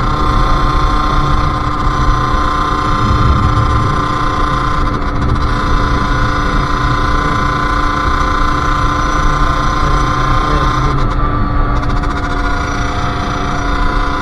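Sherco SM-R 50's 50cc two-stroke engine running at a steady, high pitch under way, with a brief dip in revs twice, about five and eleven seconds in.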